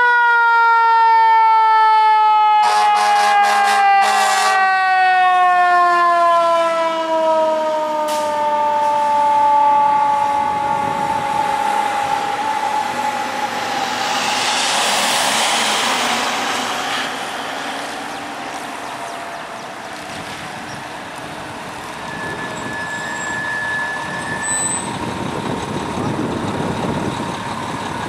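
Mechanical Federal Signal Q siren winding down: its wail slides slowly lower over about a dozen seconds, with short rapid stuttering bursts about three and four seconds in. Around the middle a hiss swells and fades, and towards the end the fire engine runs as it pulls out.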